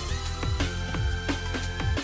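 Electronic background music with a steady beat: a repeating kick drum under sustained synth tones.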